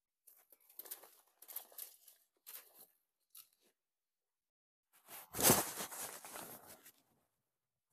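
Dry brush and branches being handled, crackling and rustling: several short bursts in the first few seconds, then a louder crunching rustle lasting about two seconds from about five seconds in.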